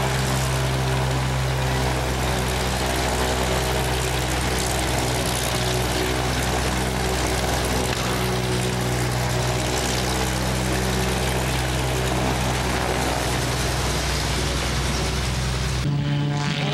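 Pitts S-2S aerobatic biplane's six-cylinder Lycoming engine and propeller idling steadily on the ground, a constant low hum. The sound cuts off abruptly near the end.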